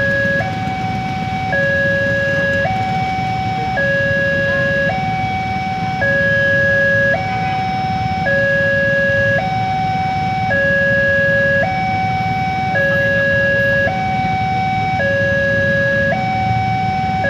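Railway level-crossing warning alarm sounding continuously: an electronic two-note signal alternating between a lower and a higher tone, each held about a second, over steady traffic hum. It signals that the barriers are down for an approaching train.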